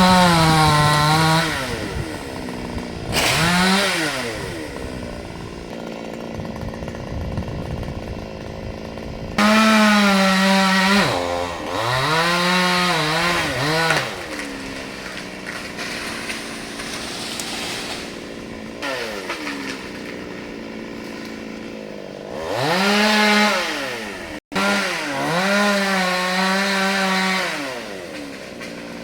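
Two-stroke chainsaw revving up to full throttle and dropping back to idle, about six surges with quieter idling between them.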